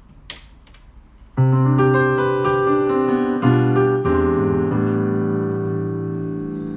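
Piano chords: a loud chord struck about a second and a half in, a second chord with a change in the bass about two seconds later, then the notes ring on and slowly fade.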